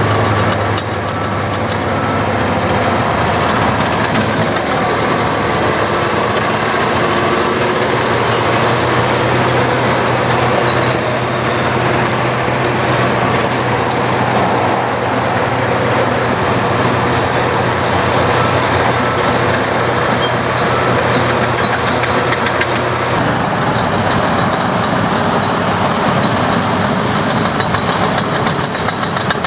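Heavy diesel construction machinery working, with a steady low engine drone and constant rattling and clanking. The drone drops away for a few seconds and then returns, and the sound changes character about two-thirds of the way through.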